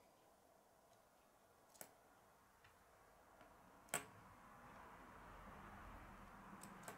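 Plastic K'nex pieces clicking as they are slid and snapped onto a rod: two sharp clicks about two seconds apart, the second the louder, with a few fainter ticks between them and near the end.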